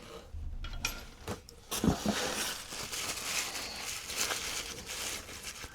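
A few sharp clicks and clinks of hard stone pieces knocking together, then a steady crackly rustle of wrapping being handled.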